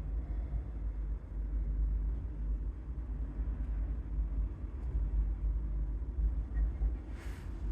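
Low, steady background rumble, with a brief hiss about seven seconds in.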